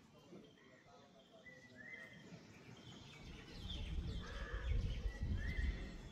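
Birds calling, with short rising calls repeating every second or two. From about halfway a low rumble on the microphone comes in and grows louder than the calls.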